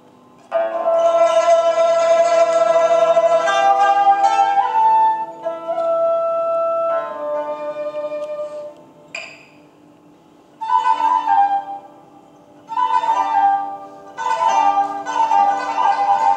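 Pipa playing solo: plucked notes held by tremolo, some bent in pitch. The phrases break off in short pauses about two thirds of the way through.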